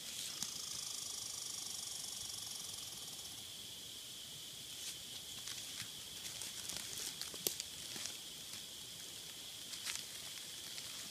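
Footsteps and rustling on forest leaf litter and twigs as a person walks in and kneels down, with scattered sharp snaps and crackles. A high thin trill sounds for the first three seconds over a steady faint hiss.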